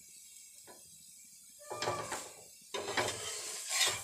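Flat spatula scraping and pressing a paratha against a tawa: two rough scraping passes in the second half.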